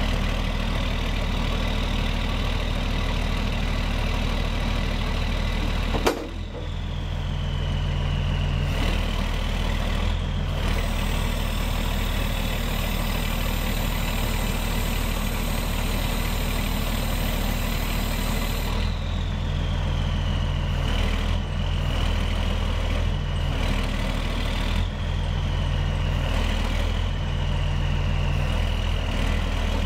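International DT360 inline-six diesel running steadily at idle, driving the Hiab knuckle boom crane's hydraulics, with a high whine that sags and recovers in pitch several times as the boom is worked. A single sharp clank about six seconds in.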